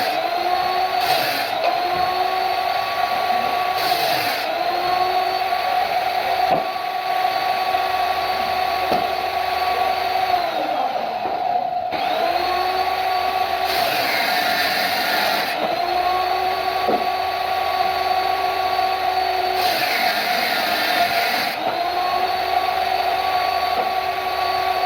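Woodworking power tools running: a steady machine hum, with a motor that spins up, runs for a few seconds, and winds down again, about eight times over.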